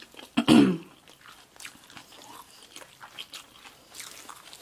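Close-miked chewing of sushi and a seaweed hand roll: many small wet clicks and mouth sounds, with a short hummed "mm" about half a second in.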